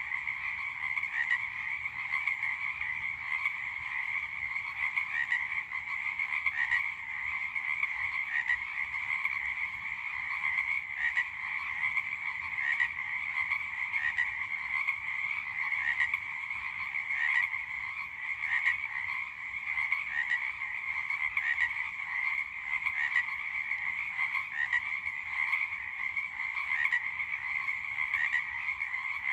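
A chorus of many frogs croaking, their calls overlapping in a dense, unbroken mass with no pauses.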